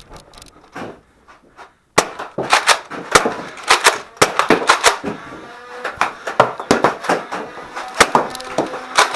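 Nerf foam-dart blasters firing in quick succession, with darts smacking walls and furniture: a dense clatter of sharp clicks and hits that starts suddenly about two seconds in.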